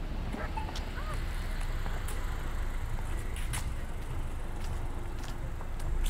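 Street ambience: a steady low rumble of road traffic, with scattered light clicks and a brief faint chirp about half a second in.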